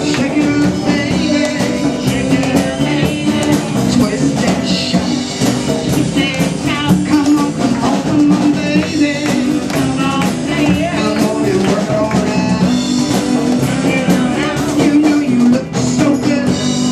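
Old-style music with a drum kit keeping a steady beat, guitar and singing.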